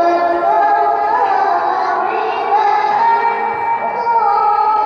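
A girl's voice in melodic Qur'an recitation (tilawah), holding long high notes that step upward a little over a second in and again about three seconds in, with a slight dip near the end.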